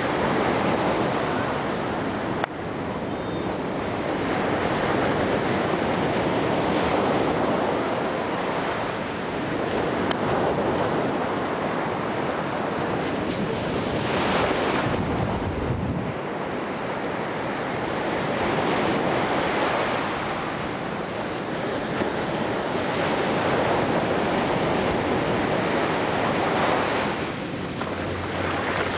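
Ocean surf breaking and washing up the sand in a steady swelling and ebbing rush, with wind buffeting the microphone, most strongly as a low rumble about halfway through.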